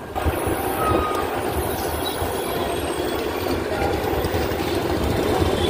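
Steady, even rumble of heavy road traffic on a highway.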